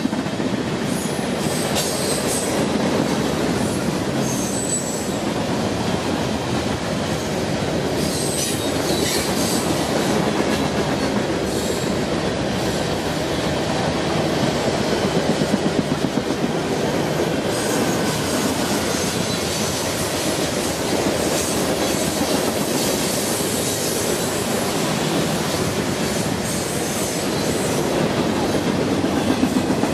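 Freight cars rolling past close by: a steady rumble and rattle of steel wheels on the rail, with the wheels clacking over the rail joints and a few brief high wheel squeals in the first several seconds.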